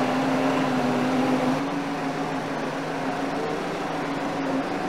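Steady machine hum with a droning tone that shifts up slightly about one and a half seconds in.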